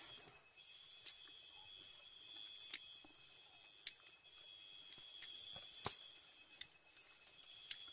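Night insects calling steadily, a shrill high drone under a pulsing higher trill that stops and restarts every second or two. A few sharp clicks break in, the loudest a little under three seconds in.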